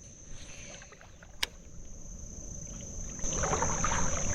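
Shallow creek water being stirred, as by someone wading or moving through it, with a steady high-pitched insect drone. There is one sharp click about a second and a half in, and the water sounds grow louder about three seconds in.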